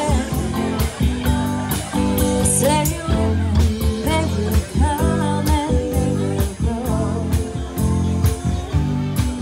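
Live rock band playing: a woman singing lead over electric guitar, electric bass and a drum kit keeping a steady beat, all amplified through PA speakers.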